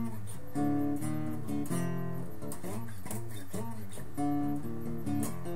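Steel-string acoustic guitar strummed in a steady rhythm, its chords ringing.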